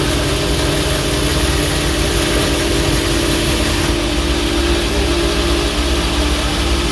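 Power grinder running steadily as it grinds the step of a small cast iron anvil: a constant motor hum under an even hiss of abrasive on metal.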